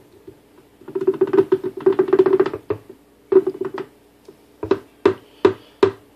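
Vitamix blender motor running in short pulses on a jar of fruit smoothie: a quick run of bursts, then four brief separate pulses near the end.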